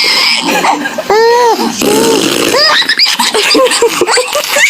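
Baby laughing in high-pitched squealing bursts: one long arched squeal about a second in, another near the middle, then a run of shorter giggles.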